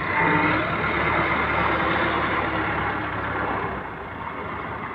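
Massey Ferguson 385 tractor's four-cylinder diesel engine labouring as it tows a loaded thresher through sand. The engine is loudest for the first few seconds, then eases off about four seconds in.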